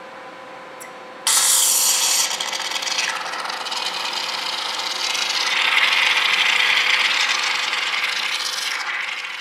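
Refrigeration compressor oil and refrigerant hissing out under crankcase pressure as the valve on a drain hose is cracked open over a drain pan, starting suddenly about a second in and loudest at first. With the hose end then held under the oil, it goes on as a hissing, bubbling flow, the refrigerant trapped in the oil flashing off, and fades near the end.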